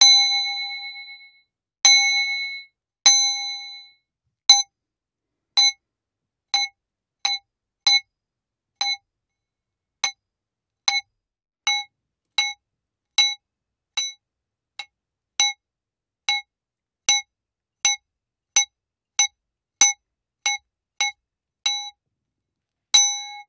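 A bowl struck again and again, each hit a bright ringing tone with the same pitch. The first three hits ring on for over a second. Then comes a run of about twenty short hits, each stopped soon after the strike, at roughly one to two a second. Near the end one more hit rings on longer.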